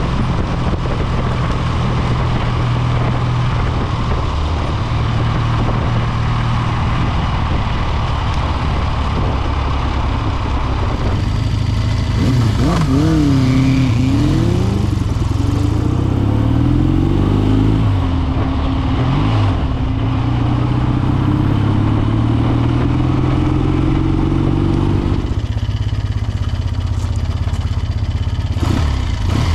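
Triumph T140's 750 cc parallel-twin engine running on the move with wind noise, its pitch rising and falling with the throttle and gear changes about halfway through. Near the end it drops to a lower, steady beat as the bike comes to a stop.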